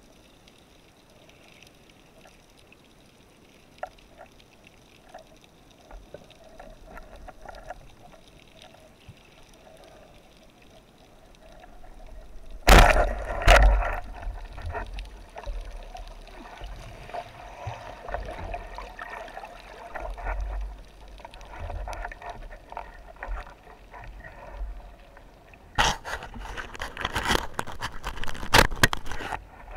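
Underwater water noise picked up by a camera on a speargun during a spearfishing dive: a faint steady hiss at first, then from about halfway louder gurgling and sloshing with low rumbles, opened by a sudden loud knock. Near the end comes a run of sharp knocks and splashing.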